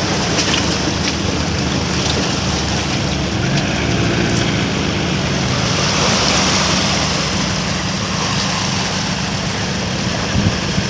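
4x4 off-roader's engine running steadily as it drives through deep muddy water, with water splashing and rushing around the wheels, heaviest about six seconds in.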